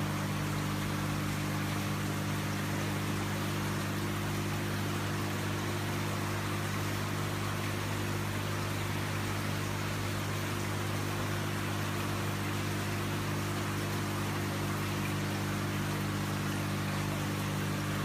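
Water from a floor-standing waterfall fountain sheeting down a clear glass panel and splashing into its pebble-filled reservoir: a steady, even splashing hiss over a steady low hum.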